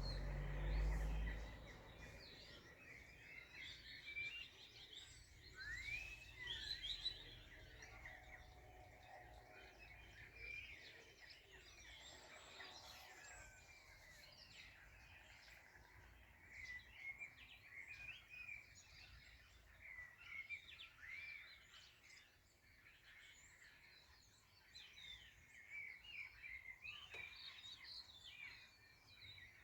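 Several songbirds chirping and singing over one another, faint, with many short calls and trills overlapping. A low rumble sounds briefly at the very start.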